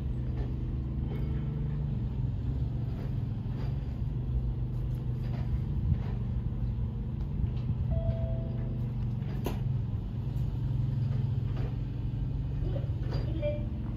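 A steady low engine hum, with a few light clicks.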